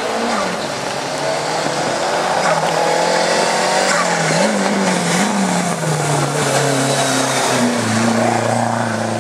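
Hillclimb race car engine revving hard, its pitch climbing and dropping several times as it is driven through the gears, then holding a steadier, lower note near the end.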